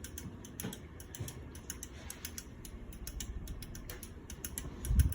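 Casablanca Four Seasons III ceiling fan running at medium speed: a low rumble with quick, uneven clicking throughout, and a heavier low thump near the end.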